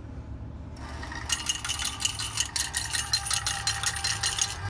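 Coin change machine paying out quarters: a fast, loud clatter of coins dropping into its metal tray, starting about a second in and going on for several seconds over a low hum.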